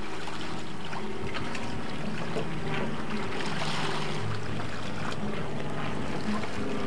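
Water sloshing against a catamaran's hull and wind on the microphone, a steady noise with a low hum underneath.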